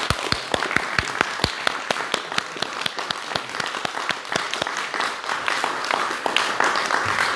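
Audience applauding: many hands clapping in a sustained round, with a few louder claps close by in the first second and a half.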